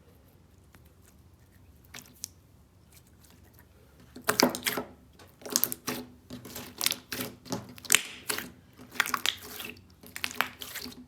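Soft, sticky material being squeezed and worked by hand, giving irregular wet squishing and crackling sounds that start about four seconds in after a quiet opening with a couple of faint clicks.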